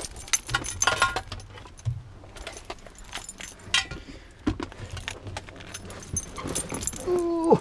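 Metallic clicks and clatter as aerosol spray cans are picked up and handled in a car's footwell, in scattered short knocks. A brief pitched sound near the end is the loudest moment.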